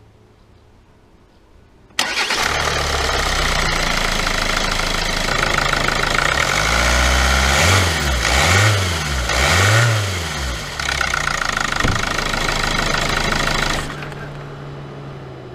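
Hyundai i40's 1.7 CRDi four-cylinder diesel engine starting about two seconds in, on its first start after an oil and filter change, then running at idle. The engine speed rises and falls about three times in the middle, and the sound dies down near the end.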